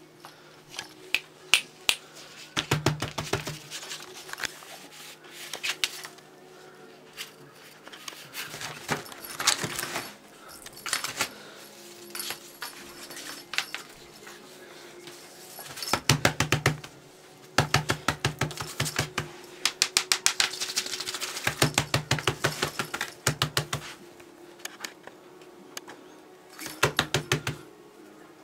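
Bursts of rapid, even clicking and rattling, a second or two at a time, as a cat bats and worries a feather wand toy, over a faint steady hum.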